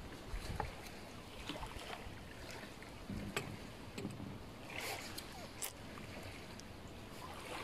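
Faint steady background noise with scattered light clicks and taps, and a short louder rustle about five seconds in.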